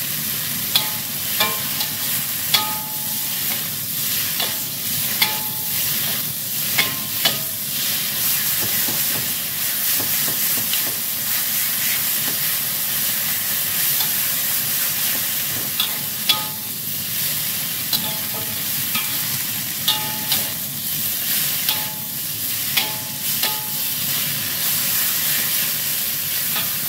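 Papaya shoots sizzling in oil in a metal wok while being stir-fried with a metal spatula, which clinks and scrapes against the pan with short ringing strikes, in clusters in the first several seconds and again past the middle.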